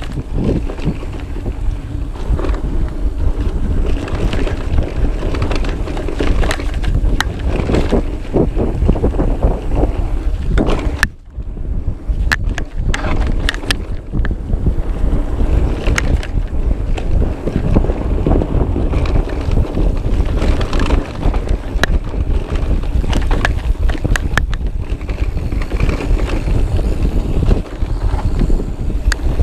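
Wind rushing over the microphone of a camera carried on a mountain bike running down a bike-park trail, with a steady rumble and frequent sharp knocks and rattles over rough ground. The rush dips briefly about eleven seconds in.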